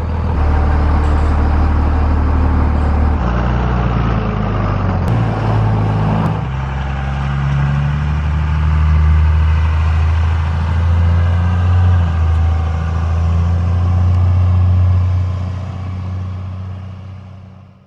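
Truck engine running close by with a steady low drone; its pitch steps up and down a few times in the first six seconds, then holds before fading out near the end.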